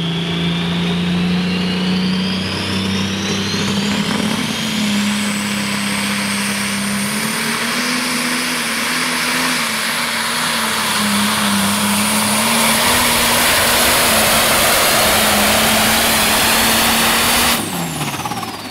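Turbocharged diesel engine of a John Deere 7820 super stock pulling tractor at full throttle on a pull, its turbo whine rising steeply over the first few seconds and then holding high. About a second before the end the engine cuts off and the whine falls away.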